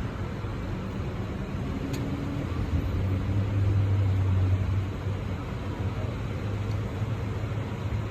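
A low, steady engine hum that grows louder for a couple of seconds in the middle, with one faint click about two seconds in.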